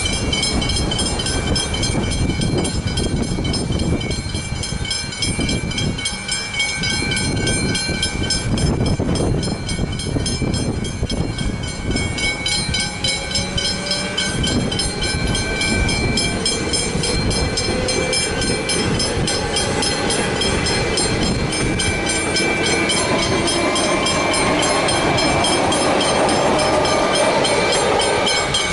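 Westinghouse Hybrid level-crossing bells ringing continuously with rapid, evenly spaced strokes while the boom gates are down. Trains pass over the crossing underneath, with a heavy low rumble of wheels on rail and a rising whine in the second half.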